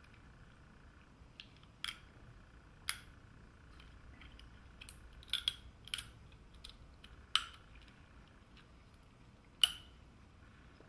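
Irregular sharp clicks and taps, about six louder ones among fainter ones, from a SharkBite push-fit fitting being handled while its plastic PEX stiffener inserts are taken out of both ends for use on copper pipe.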